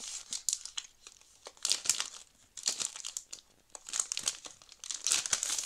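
Clear plastic packaging sleeve crinkling in several short bouts as it is pulled off a clear stamp and cutting-die set.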